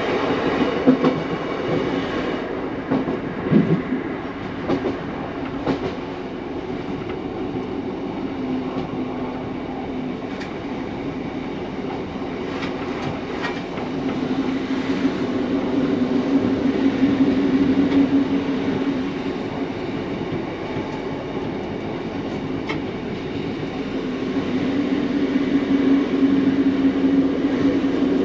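Class 150 Sprinter diesel multiple unit under way: a steady diesel engine drone with the wheels clicking over rail joints, the clicks mostly in the first few seconds. The drone swells about halfway through and again near the end.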